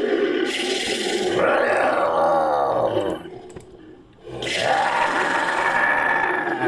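Monster sound effect: two long, gravelly growl-roars made from a processed voice, with a short pause between them about three seconds in.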